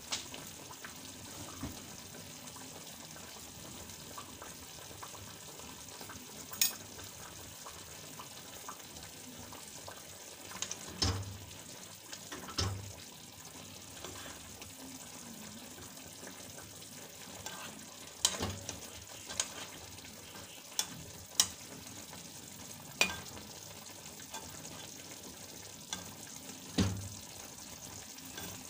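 Pan of milkfish and eggplant cooking in vinegar and oil, giving a soft steady sizzle. A metal spoon clinks against the pan about nine times, scattered from about a third of the way in, as the food is stirred and turned.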